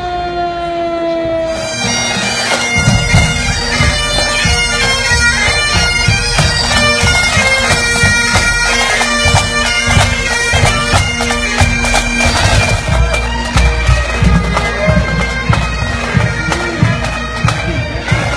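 A parade pipe band of bagpipes and drums playing: the steady drone and chanter melody of the pipes over regular drum beats, starting about two to three seconds in. Before that, a tone slides slowly downward and fades out.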